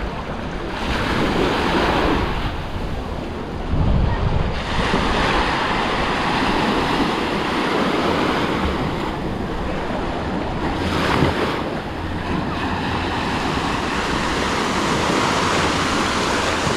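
Sea waves washing onto a sandy beach, swelling and easing, with wind buffeting the microphone.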